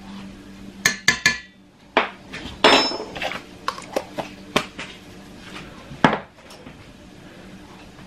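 A metal spoon clinking and tapping against a stainless steel mixing bowl and kitchen items being set down: a quick run of three sharp knocks about a second in, a short scrape with a brief ring, then scattered single clinks, the last and loudest about six seconds in.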